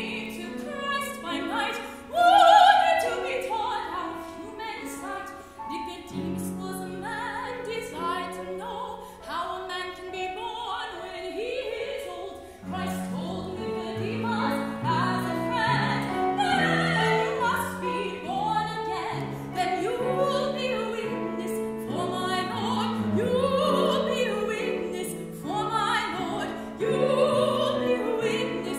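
A woman singing in a classical, operatic style with piano accompaniment, with a loud high note about two seconds in.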